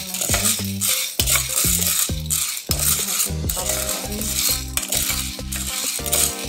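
Background music with a steady bass beat, over the scraping rattle of a spoon stirring dry popcorn kernels and oil in a metal pot.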